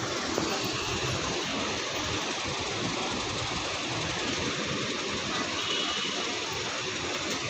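Steady street traffic noise: an even rumble of passing and idling vehicles.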